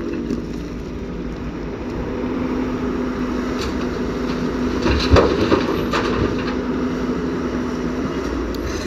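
The diesel engine of a JCB tracked excavator runs steadily as it digs and swings its arm. There is a sharp knock about five seconds in and a weaker one about a second later.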